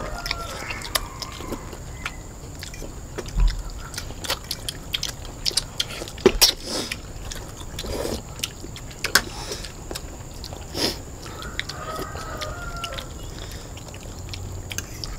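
People eating noodles at close range: chewing and mouth noises with scattered sharp clicks and taps of forks and plastic spoons on a shared plate.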